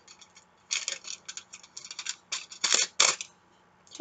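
Aluminium foil crinkling as it is wrapped by hand around a stick, in quick crackly rustles that start about a second in, with two louder crackles near the three-second mark.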